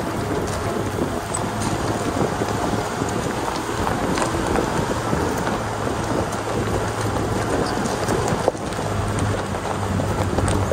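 Off-road 4x4, a Nissan Patrol Y60 with a swapped-in BMW M57 straight-six diesel, driving on a rough mountain track: a steady low engine drone under dense rattling and crackling noise with scattered sharp ticks. The engine note grows a little stronger near the end.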